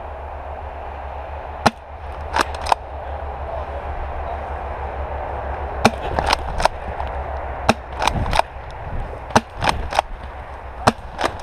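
Airsoft guns firing: sharp pops in irregular twos and threes, about fourteen in all, over a steady rush of noise.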